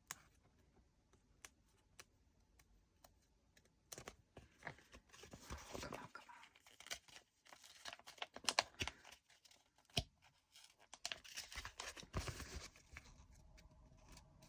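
Small plastic packets of diamond-painting drills being handled, crinkling and rustling with scattered light clicks, starting about four seconds in.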